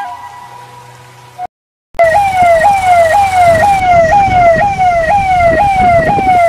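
Loud electronic siren wailing in fast repeated sweeps, about two a second, each jumping up in pitch and sliding back down, with a low rumble underneath. It starts about two seconds in, after the end of fading background music and a moment of silence.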